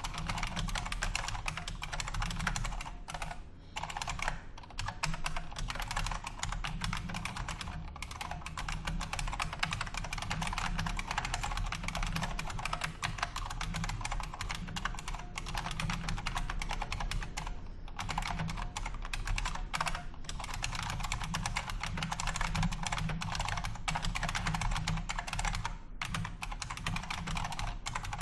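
Continuous fast typing on a Unicomp Ultra Classic buckling-spring mechanical keyboard: a dense stream of sharp keystroke clicks, broken by a few brief pauses.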